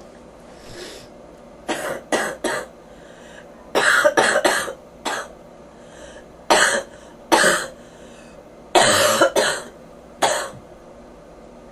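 A person with a bronchitis cough coughing repeatedly: about a dozen coughs, some in quick runs of three, beginning a couple of seconds in.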